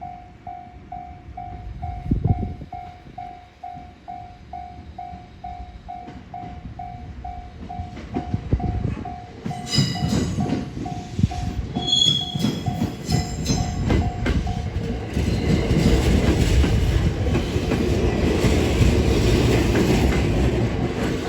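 Level-crossing warning bell ringing in quick, even pulses, about three a second, which stop about two thirds of the way through. Meanwhile the running and wheel noise of a local electric train arriving on the rails grows louder, with a few brief high squeals near the middle.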